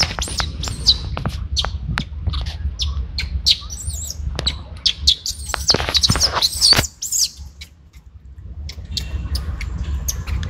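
Rapid, high-pitched animal chirps and squeaks mixed with sharp clicks, over a steady low rumble; the calls die away about seven seconds in.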